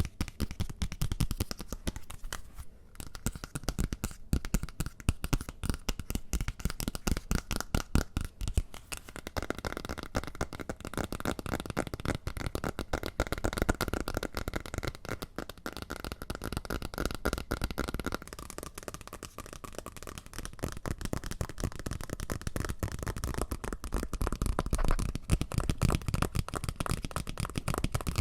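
Close-miked ASMR tapping and scratching: a dense, rapid run of small clicks and taps on an object, many a second, without a break.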